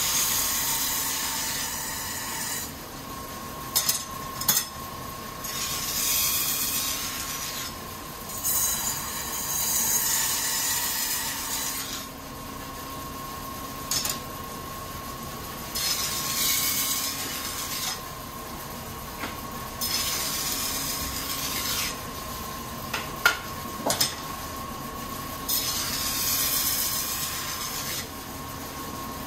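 Kitchen knife blade ground against a rotating sharpening wheel in repeated passes. Each pass is a hissing scrape of two to three seconds, about every four seconds, over the wheel's steady whine, with a few sharp clicks near the end.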